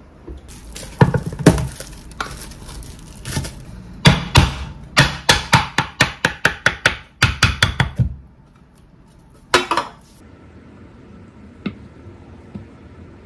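Knife chopping fast on a wooden cutting board, a run of sharp strikes about four a second from about four to eight seconds in. A few knocks come about a second in, and one more strike near the ten-second mark.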